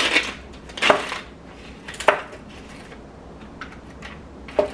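Plastic packaging rustling, then a few sharp clicks and taps as hard-frozen mochi balls are pulled from a plastic tray and set into a plastic bowl.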